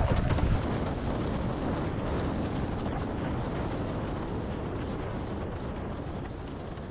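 Wind buffeting the microphone of a head-mounted action camera, with water rushing under a windsurf board planing at about 50 km/h. A steady noisy rush, loudest at first, that gradually dies away.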